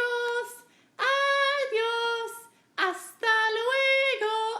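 High voice singing a children's goodbye song unaccompanied, in three short phrases of held notes that each step down in pitch at the end.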